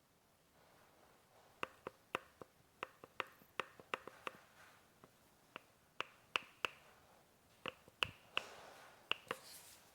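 Recaro Easylife stroller front wheel clicking and rattling as it is wobbled by hand, a string of sharp, uneven clicks starting about a second and a half in. The knocking comes from excess play in the wheel, the abnormal noise being demonstrated.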